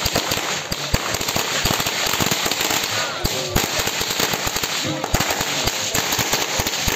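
A long string of firecrackers going off: a dense, irregular rattle of sharp bangs that keeps going without a break.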